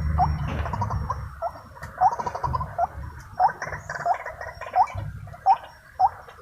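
White-breasted waterhen calling: a run of short rising 'wak' notes, about one or two a second, over a harsh throaty chatter.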